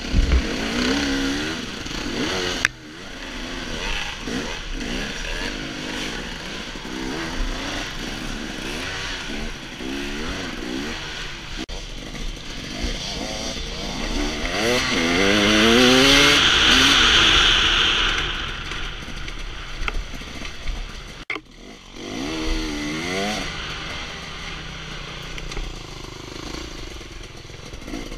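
Dirt bike engine heard from the rider's own bike, revving up and down through the gears in repeated rising sweeps on a trail ride. A loud rushing hiss swells in the middle. The sound breaks off abruptly twice where separate ride clips are cut together.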